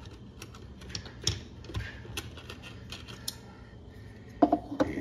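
Scattered small clicks and taps of hard parts being handled as the spring and VPI vacuum wand are fitted into the wand base, over a low steady hum.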